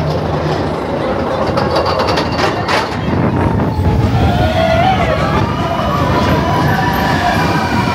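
Expedition Everest roller coaster train running along the track: a low rumble with a quick run of clicks early on. Riders' voices are heard over it from about four seconds in.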